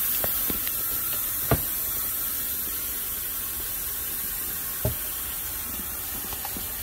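Kitchen faucet running steadily into the sink with a hissing rush of water, run to test the drain pipes under the sink for leaks. Two short knocks sound about one and a half seconds in and again near five seconds.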